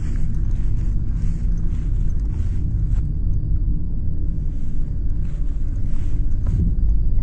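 Steady low rumble on a handheld phone microphone as the person walks, with soft swishing footsteps through grass about twice a second.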